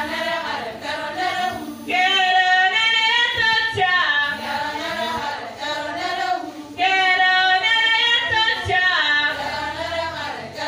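A group of women singing together without instruments, with loud new phrases coming in about two and seven seconds in.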